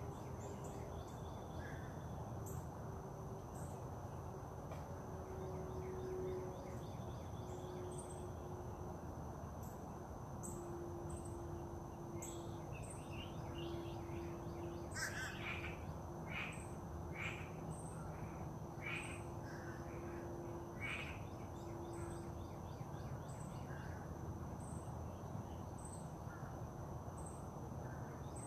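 Outdoor nature ambience: birds calling, with a run of about six calls, one a second, around the middle. Short high chirps repeat about once a second throughout, over a steady high tone and a low background hum.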